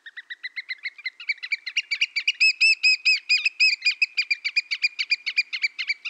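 Eurasian oystercatcher calling: a rapid run of shrill piping notes, many each second, growing louder over the first couple of seconds and keeping up at that level.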